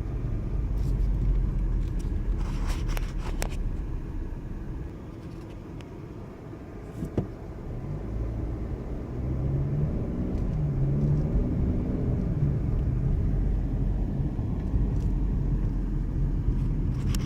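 Car traffic on a city road: a steady low rumble of engine and tyres that eases off near the middle and builds again, with a few short clicks.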